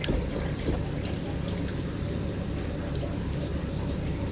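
Water pouring in a steady stream into a partly filled aquarium tank, splashing and bubbling at the surface, with a few light clicks near the start.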